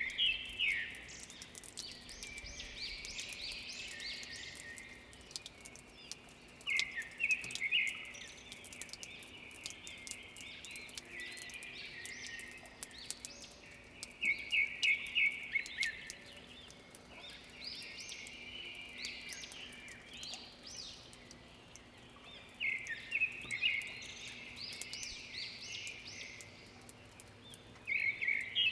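Birds singing after rain: a bright song of rapid high notes comes in loud phrases about every seven seconds, with softer twittering between. Faint, scattered high clicks run under the song, like water dripping.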